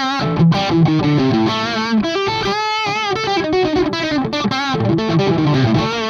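Electric guitar played through channel 2 of a Radial Tonebone Trimode Classic Distortion pedal, with a distorted tone and a run of changing notes. A held note wavers with vibrato about halfway through.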